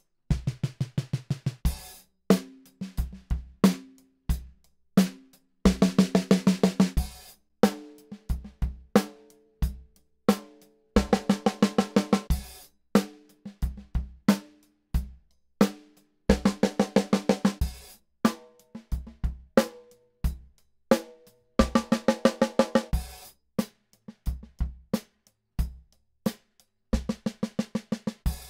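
Rogers Dynasonic 14x5 chrome-over-brass snare drum played in a beat with kick drum and hi-hat, with fast runs of snare strokes every few seconds. The snare changes tuning along the way: first super low and deadened under a full bandana, moongels and an O-ring, then medium tuning with one moongel and rimshots, then medium-high under a bandana, its pitch rising each time.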